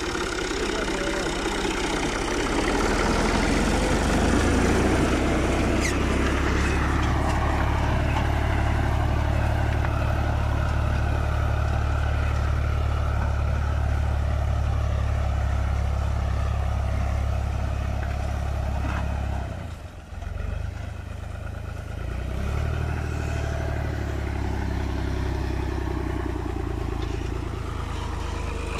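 New Holland Ghazi tractor's diesel engine running steadily under load while pulling a disc harrow through grassy soil. The sound dips briefly about two-thirds of the way through.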